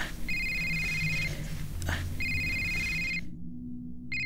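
Smartphone ringing with an incoming call: an electronic two-tone ring in bursts about a second long, repeating about every two seconds. The ringing cuts off suddenly for about a second, then one more short ring starts near the end.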